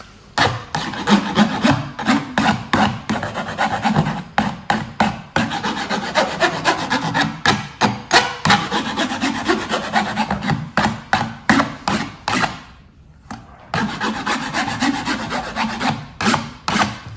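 Metal file rasping along the edge of a copper etching plate in quick back-and-forth strokes, about three a second, with a short pause about three-quarters of the way through. The file is bevelling and smoothing the sharp plate edge.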